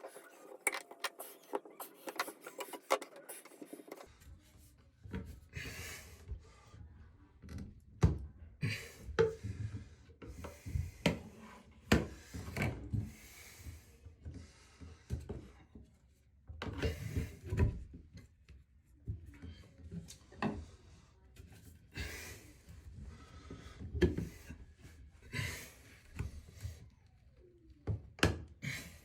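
Irregular scraping, rubbing and knocking of hand work on a shower floor drain, with sharp clicks and knocks scattered among longer scrapes.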